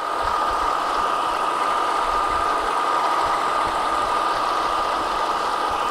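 Condia variable-speed vertical milling machine running steadily, its head and motor giving an even hum with a constant high whine over it.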